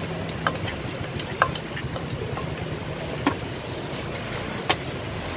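Steady street traffic noise, with a few sharp, spaced-out knocks and clinks of utensils against a clay mortar and dishes, some with a brief ring.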